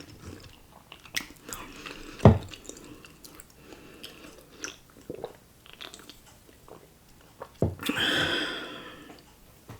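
Close-miked eating sounds: a person chewing cheesy ramen noodles and chewy rice cakes, with small wet mouth clicks. There is a sharp knock about two seconds in, and a longer, drawn-out mouth sound near the end.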